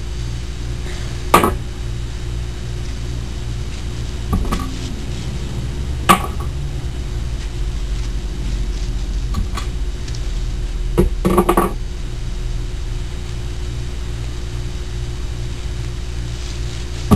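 Velcro hair rollers and a brush being handled and set down on a hard surface: a few sharp clicks and a short clatter about two-thirds of the way in, over a steady low electrical hum.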